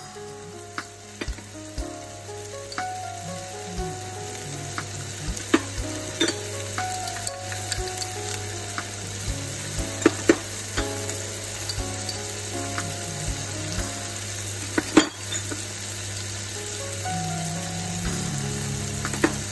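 Chicken and onions sizzling in oil in a nonstick frying pan as spices are stirred in. A utensil knocks sharply against the pan now and then, loudest around ten and fifteen seconds in.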